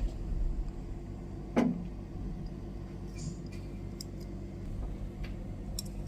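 Handling noises: a single sharp knock about a second and a half in and a few light clicks, over a low steady hum.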